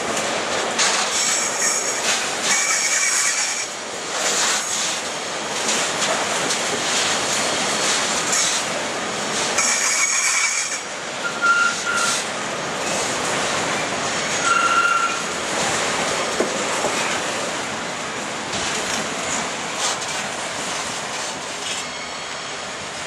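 Freight train of flat wagons loaded with long lengths of rail rolling past close by, its wheels clattering over the rail joints, with several brief high-pitched squeals. The sound grows fainter near the end as the last wagon passes.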